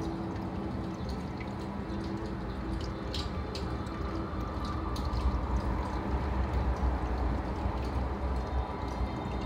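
Aquarium water trickling and bubbling over a steady low hum, with scattered small drip-like pops.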